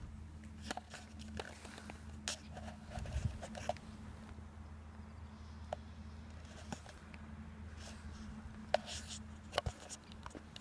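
Footsteps on stone paving, irregular light clicks and scuffs about once a second, over a steady low hum.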